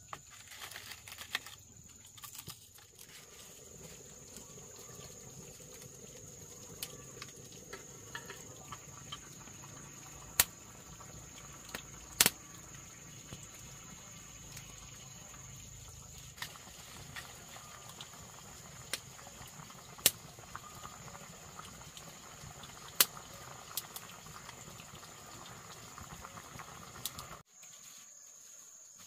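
Water trickling steadily, under a steady high-pitched tone, with about half a dozen sharp knocks spread through it that are the loudest sounds; it all cuts off suddenly near the end.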